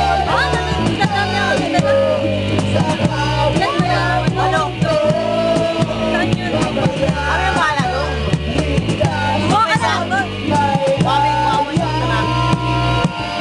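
A man singing through a microphone over loud amplified music with a steady beat.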